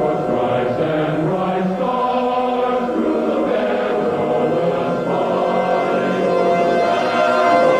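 Choral music, a choir singing long held notes.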